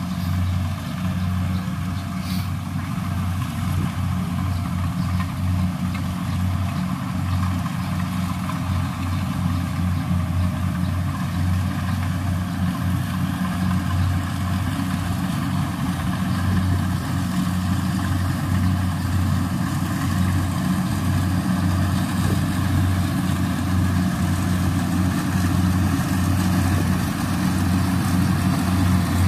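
Kubota DC70 combine harvester's diesel engine running steadily under work: a continuous low drone with a slight pulse.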